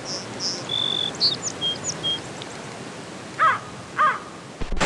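Birds calling over a steady background hiss: a few short, thin, high chirps and whistles in the first two seconds, then two louder, lower calls about half a second apart near the end.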